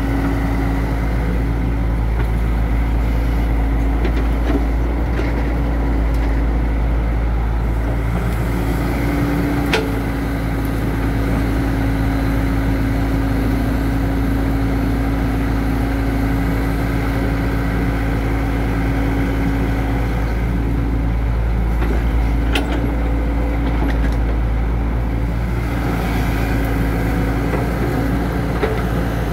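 Tracked hydraulic excavator's diesel engine running steadily under digging load, a continuous engine drone with a held tone. A couple of sharp knocks cut through, one about ten seconds in and another a little past twenty seconds.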